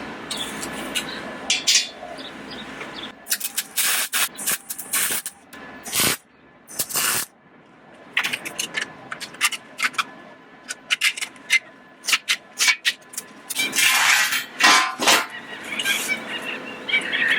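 Wire-feed (MIG) welder laying a series of short tack welds on a steel frame. Each weld is a brief burst of arc crackle, and the bursts come with pauses between them, the longest around the middle and near the end.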